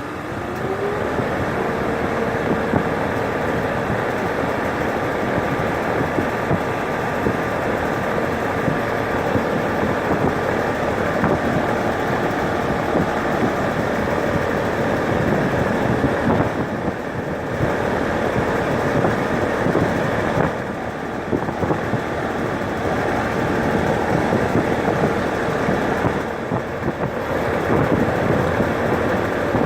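Rheem air conditioner running: a steady rush of air with a motor hum that rises in pitch over the first second or so as it comes up to speed, then holds. The sound dips briefly three times, in the middle and toward the end.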